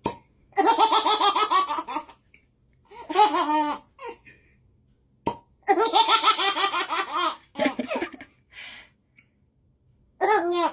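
A baby laughing in about four bursts of quick, high-pitched pulsing laughter, the longest around the middle.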